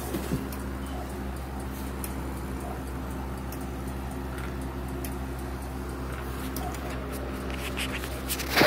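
Faint ticking of a Seth Thomas triple-chime mantel clock over a steady low hum, with one sharp knock near the end.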